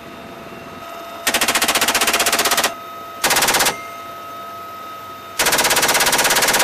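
GAU-21 .50-calibre machine gun fired from a helicopter door in three bursts, each a rapid, even stream of shots: one of about a second and a half, a short half-second burst, and a longer one starting near the end. Between bursts the helicopter's steady drone with a faint steady whine.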